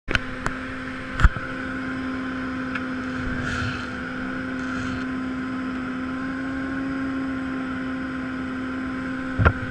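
Steady drone of a light aircraft's engine and propeller heard from inside the cabin, holding one even pitch. A few sharp knocks come in the first second or so and one more near the end.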